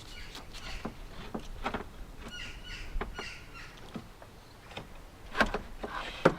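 Irregular clicks, taps and knocks of parts and tools being handled in a car door during reassembly, with two louder knocks near the end.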